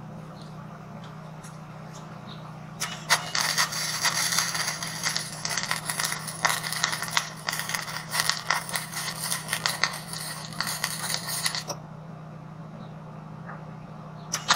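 Electric arc welding on light-gauge steel channel: the arc crackles and spits steadily, starting about three seconds in and cutting off near twelve seconds.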